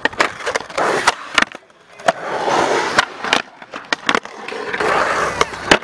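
Skateboard wheels rolling on concrete, broken by repeated sharp clacks of the board popping, flipping and landing.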